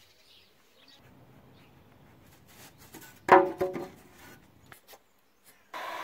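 Wooden strips knocking together about three seconds in, a sharp clack that rings briefly, followed by a couple of lighter knocks. Near the end a hand-held heat gun starts up and blows steadily, used to soften PVC tube for bending.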